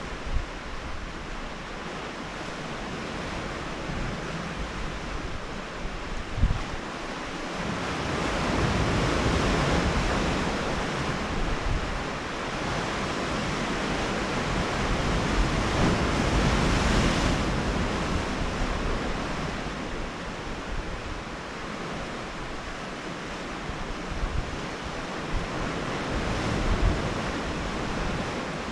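Sea waves breaking and washing on a rocky shore, a steady rush that swells in slow surges, with wind gusting on the microphone and giving a low rumble and a few buffeting thumps.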